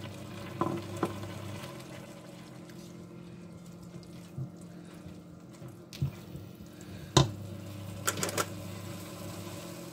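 Soup simmering in a stainless steel pot, a steady watery hiss with a low hum under it. A silicone spatula stirs and clacks against the pot a few times, sharpest about seven seconds in.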